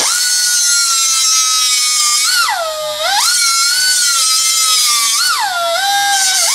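Handheld grinder running at high speed, grinding steel to cut away nuts welded into a tubular lower control arm. Its whine drops sharply in pitch twice as the wheel bites under load, then climbs back.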